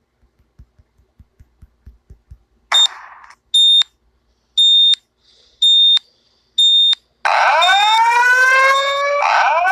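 Fire alarm going off: after a few faint quick taps and a short hiss, four loud high electronic beeps about a second apart, then from about seven seconds in a loud wailing alarm that rises in pitch and starts over about every two seconds.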